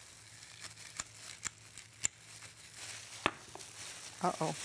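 A few light, sharp clicks of a utensil against a glass bowl and plate, with faint rustling of plastic gloves, as a sticky carob-date mixture is scooped out.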